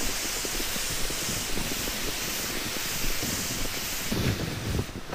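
Plastic ice-fishing shanty sled being towed over snow: a steady hiss with many small crunches from the hull sliding through the snow, stopping near the end.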